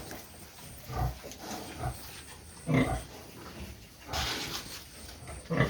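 Pigs in a farm pen grunting in short separate bursts, about five times.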